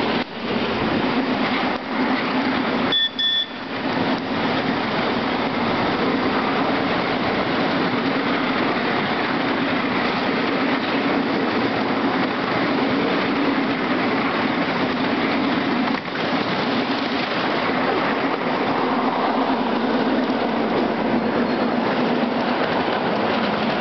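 Ride-on miniature club railway train rolling along its track, heard from aboard: a steady rumbling rush of wheels on rail. About three seconds in the noise drops out briefly under a short high beep.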